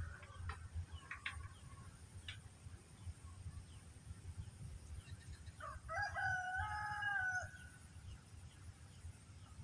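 A rooster crowing once, a single crow of just under two seconds about six seconds in, held on one pitch and dropping at the end. A few short high chirps come in the first two seconds, over a steady low rumble.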